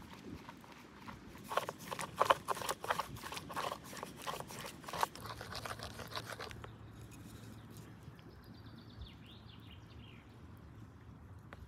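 A wooden stick whisk beating eggs in a wooden bowl: a rapid, uneven clatter of wood knocking on wood that stops abruptly about six and a half seconds in, leaving only faint stirring.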